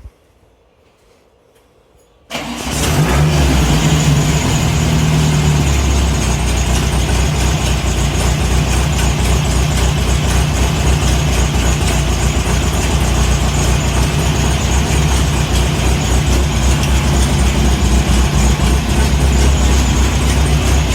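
Air-cooled Volkswagen Beetle engine, freshly fitted with a Magnaspark II electronic distributor, coil and plug wires, starting abruptly about two seconds in and then running steadily.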